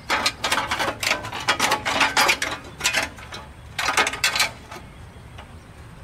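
Slightly bent sheet-metal engine cooling tin rattling and clanking against an air-cooled VW Type 3 flat-four engine as it is forced into place. Rapid metallic clatter comes in bunches and stops about five seconds in.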